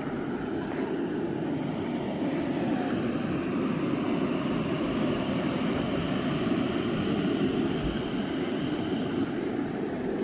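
Engine running steadily, a low drone with a high whine that comes in about two and a half seconds in.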